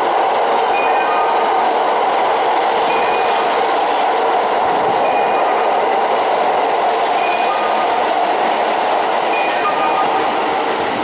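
Kintetsu limited express train running through an underground station platform without stopping: a steady, loud rush of wheels on rail with some clatter and brief faint squeals, echoing in the enclosed station.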